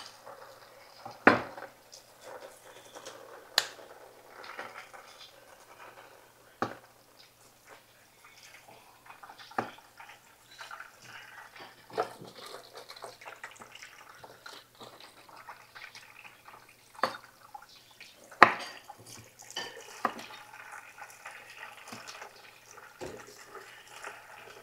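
Knife cutting bell peppers on a wooden cutting board: sharp knocks of the blade striking the board at irregular intervals of one to three seconds, with quieter slicing and scraping sounds between.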